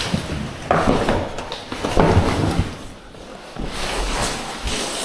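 A large strapped cardboard box being shifted and scraped along as it is manoeuvred, with two louder bumps about a second and two seconds in.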